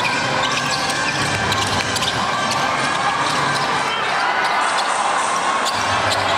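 Basketball game sound: a ball bouncing and scattered sharp clicks over a steady din of crowd noise.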